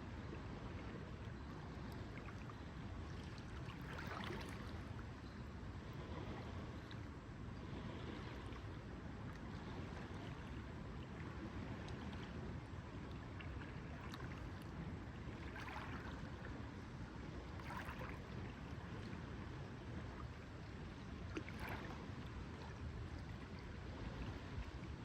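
Lakeside water ambience: small waves lapping gently over a steady low rumble, with a few brief, slightly louder laps spread through.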